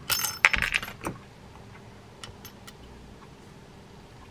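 Dense burst of small metallic clicks and rattles in the first second, then a few faint ticks, as the spinning reel's rotor, bail and small screw are handled during reassembly.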